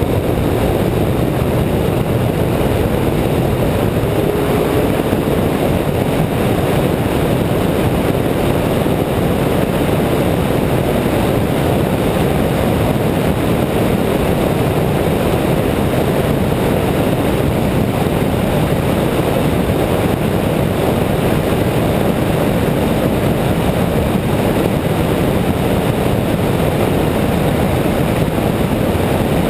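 Steady, unbroken noise of a car driving, heard from a camera mounted outside on the hood: wind over the microphone mixed with tyre and engine noise.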